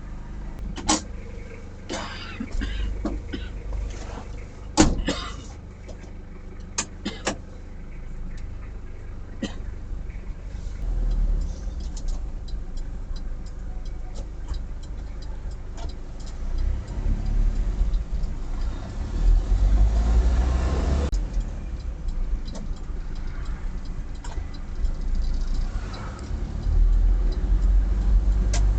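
Old ambulance's engine and road noise while driving: a low rumble that swells about seventeen seconds in and again near the end, with a few short, sharp sounds in the first seven seconds.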